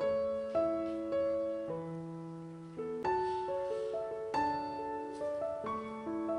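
Piano music: a gentle melody of single notes over sustained chords, each note struck and fading.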